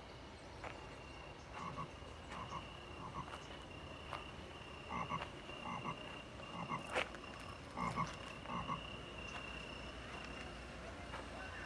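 Short croaking animal calls repeating in pairs and small clusters, loudest about two-thirds of the way through.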